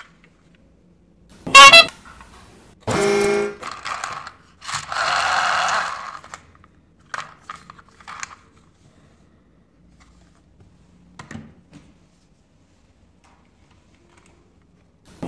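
A string of short toy-video effect sounds between quiet stretches: a bright jingle, a short horn toot, then a hiss. Faint clicks of plastic toys being handled follow.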